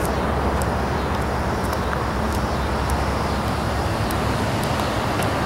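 Steady outdoor background noise, an even hiss over a low rumble, with faint light ticks now and then.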